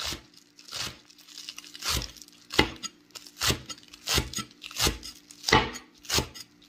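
Steel cleaver chopping green onions on a thick wooden slab board: nine separate chops, each a crisp crunch of the stalks ending in a knock on the wood, at an unhurried pace of about one every two-thirds of a second.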